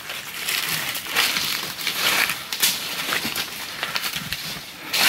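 Footsteps crunching through dry leaf litter and undergrowth on a forest path, a crunch roughly every second.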